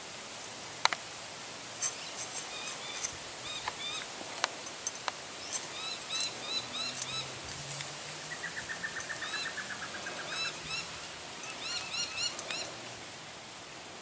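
Birds calling in rapid short chirps through most of the stretch, with a fast trill for about two seconds past the middle. A few sharp clicks stand out in the first five seconds, the loudest about a second in.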